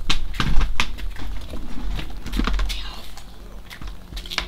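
Oil draining from the drain-plug hole of a Mercury 6 hp four-stroke outboard into a cup, in irregular pattering splashes. This is fresh oil being run through to flush the last of the old oil out of the sump. A low steady rumble runs underneath.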